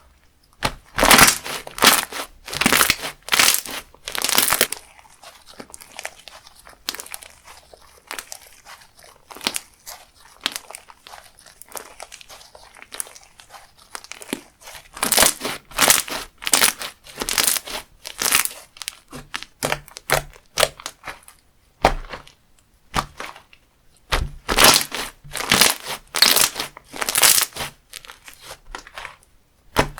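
Hands squeezing and pressing a crunchy textured slime, its beads crackling and popping in repeated loud bursts, with quieter crackles in between.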